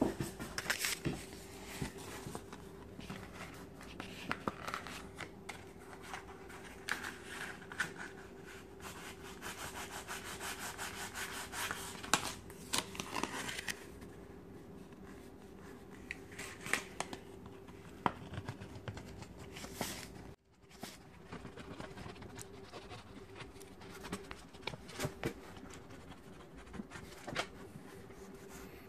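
Hand rubbing and scraping against wooden door trim, with scattered small clicks and knocks, busiest in the first half and thinning out later.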